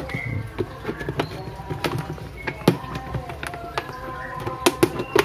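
Plastic snap-fit clips of a rice cooker's top casing clicking and snapping as the casing is pried apart by hand: an irregular series of sharp clicks, the loudest about two and a half seconds in and a few more near the end.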